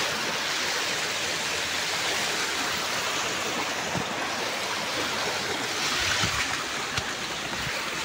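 Steady rushing of water from a stream and waterfall among rocks, with a few faint knocks.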